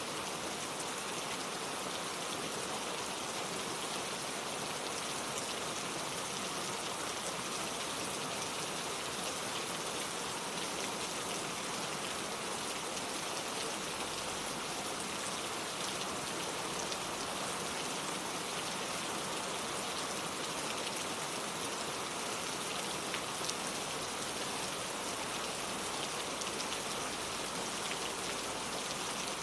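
Steady rain falling, an even hiss of many drops pattering on surfaces, with no change in intensity.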